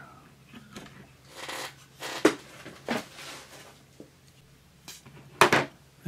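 Handling noises from a metal-chassis electronic test fixture being worked on by hand: soft rustling of wires and parts with a few sharp clicks, and a loud sharp knock about five and a half seconds in.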